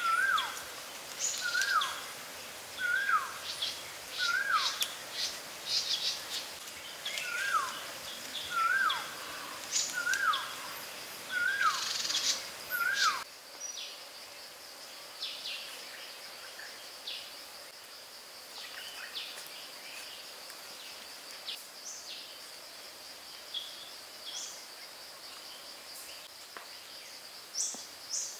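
Forest ambience: a bird repeats a short call that slides downward in pitch, about once a second, through the first half, over a steady high insect drone and scattered short chirps of other birds. About halfway through the repeated calls stop and the background changes abruptly, leaving the insect drone and occasional chirps.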